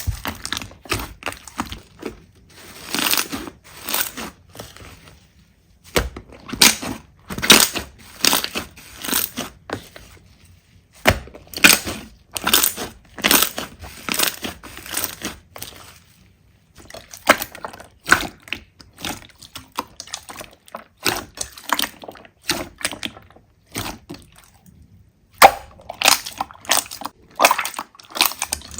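Slime being squeezed and pressed by hand, making irregular crackling and clicking sounds that come in clusters with short pauses between them.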